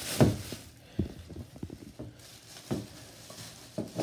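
Food cans being put into a plastic bag: a handful of short, uneven knocks and clunks, the loudest right at the start.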